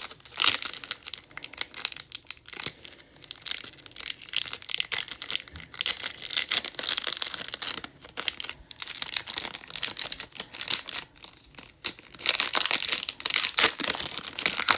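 A Pokémon trading card booster pack's plastic wrapper being torn open and crinkled by hand, with steady crackling rustles that grow louder and denser near the end.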